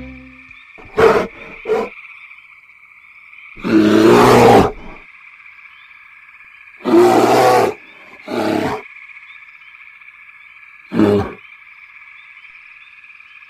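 Forest-horror sound effects: six loud, rough animal roars over a steady high background drone. Two short roars come about a second in, a long one of more than a second follows around four seconds in, two more come near the middle, and a last short one comes about eleven seconds in.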